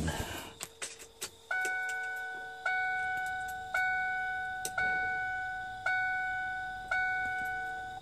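A Ford E-350 Econoline van's dashboard warning chime, sounding six times about a second apart as the ignition key is turned on, each chime a clear ding that fades away. A few small clicks come first.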